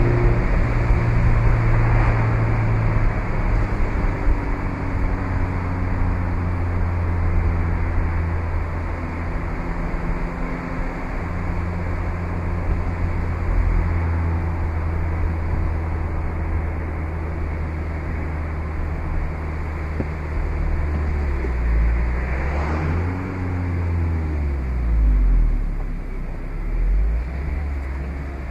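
Mazda MX-5 (2017) four-cylinder petrol engine heard from the open-top cockpit while cruising at a fairly steady pitch, under a steady hiss of tyre and wind noise. About 21 s in, the engine note dips and rises again through a gear change, and the revs climb near the end.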